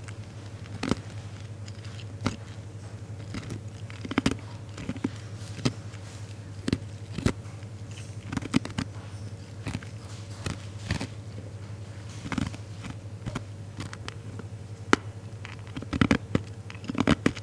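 Ice cubes being chewed: irregular sharp crunches as the ice cracks between the teeth, over a low steady hum.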